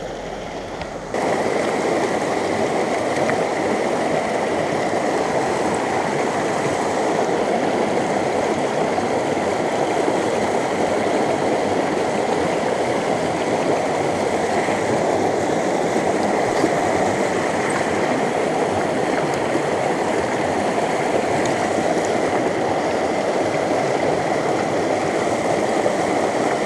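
Small mountain trout stream running steadily over rocks, a continuous gurgling wash of water; it gets louder about a second in.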